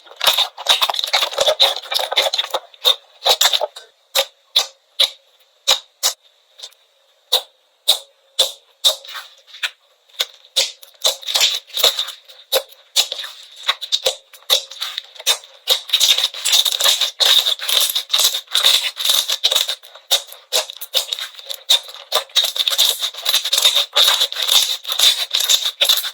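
Slime being squeezed and pressed by hand, giving fast runs of sharp pops and clicks as air pockets burst. The pops are sparse in the middle and thick again for the last third.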